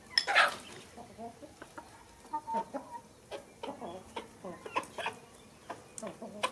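Chickens clucking, in short scattered calls, with a louder call just after the start. Light clicks and taps, like chopsticks and a metal spoon against a ceramic bowl, run under them.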